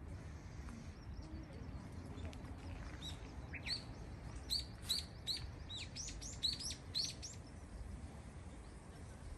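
A small songbird giving a quick run of about a dozen short, high chirps, each sweeping downward, from about three to seven seconds in, over a steady low background rumble.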